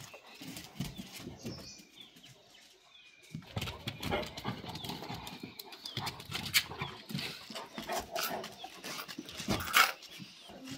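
Dogs making noise: quiet at first, then dense, irregular sharp sounds and short cries from about three seconds in, loudest near the end.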